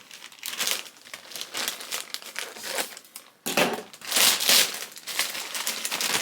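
A plastic mailer bag crinkling as it is handled and cut open, with a louder stretch of rustling and tearing a little past halfway.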